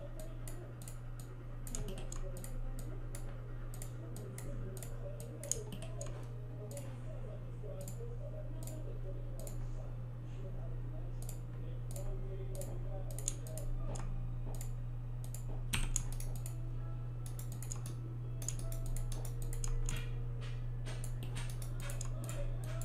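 Computer mouse and keyboard clicks, irregular and frequent, as vertices are selected and moved, over a steady low electrical hum.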